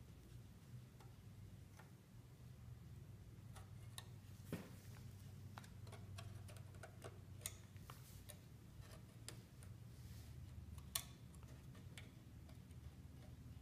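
Faint, irregular small clicks and ticks of a metal palette knife tip working under lifting brass marquetry to free it from the box lid, over a low steady hum.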